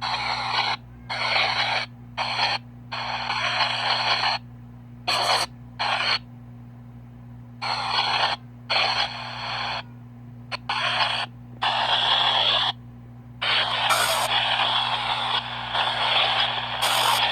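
PXB 07 spirit box sweeping through radio stations: choppy bursts of static and radio fragments that cut on and off every fraction of a second to a second, with short gaps between.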